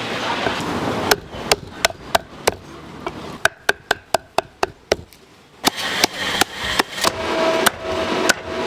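Cleaver chopping on a wooden chopping block: a run of sharp strikes, a few a second, quickest near the middle.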